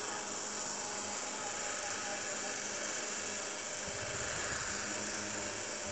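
Small electric table fan running, a steady whirring hum. From about four seconds in, low rumbling handling noise as the fan is lifted.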